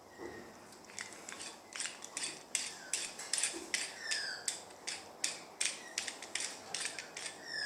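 A cheap mini vice being handled: a run of sharp metal clicks and rattles, about two to three a second, starting about a second in.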